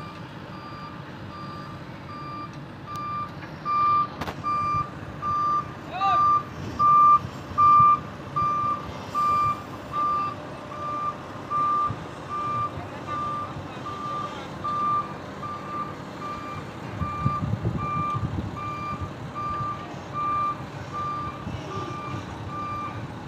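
Heavy truck's reversing alarm beeping steadily, a little over once a second, over a diesel engine running; the engine grows louder about three quarters of the way through.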